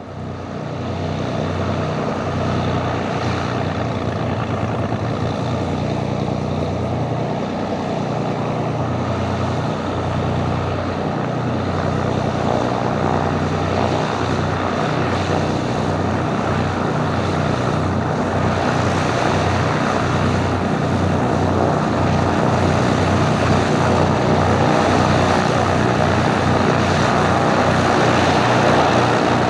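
Cessna T303 Crusader's twin turbocharged six-cylinder piston engines running at taxi power, propellers turning, growing slowly louder as the aircraft taxis closer.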